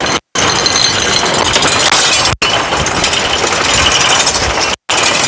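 Electrolux washing machine in a violently unbalanced spin, shaking and rattling with a dense, loud clatter and banging, cut off abruptly three times.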